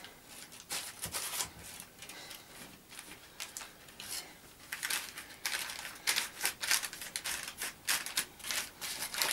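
Baking parchment crinkling and rustling in irregular crackles as hands pinch the edges of a dough sheet on a lined baking tray, the crackles coming thicker from about halfway.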